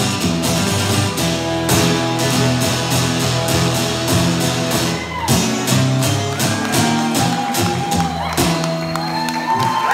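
Steel-string acoustic guitar strummed in a steady rhythm, playing the closing bars of the song after the last sung line. Near the end the audience breaks into whoops and cheering.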